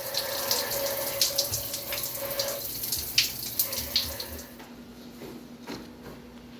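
Water running and splashing from a tap, which stops about four and a half seconds in, leaving a faint steady hum.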